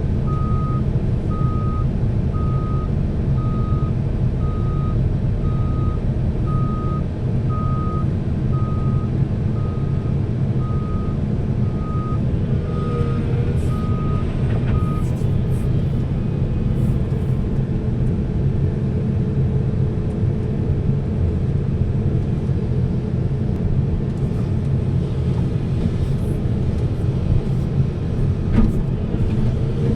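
Heavy diesel dump truck running, its reversing alarm beeping steadily in short, evenly spaced single-pitch beeps. The alarm stops about halfway through while the engine keeps droning.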